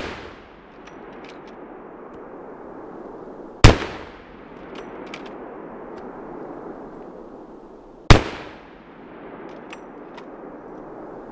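Three shots from a scoped hunting rifle about four and a half seconds apart, the first right at the start, each followed by a fading echo. Faint clicks come between the shots.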